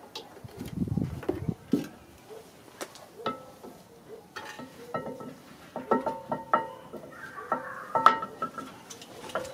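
Metal brake parts clinking and clanking as a front brake caliper is handled and fitted over a cross-drilled brake rotor. There is duller low bumping in the first couple of seconds, then a run of sharp clinks with a short metallic ring after them, coming thickest in the second half.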